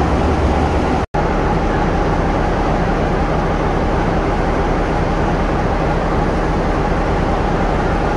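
A train passing close by, a loud steady noise. It drops out completely for a moment about a second in.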